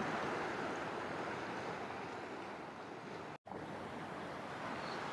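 Steady rush of surf on a rocky shore mixed with wind. It drops out abruptly for a split second about three and a half seconds in, then a similar, slightly quieter outdoor rush resumes.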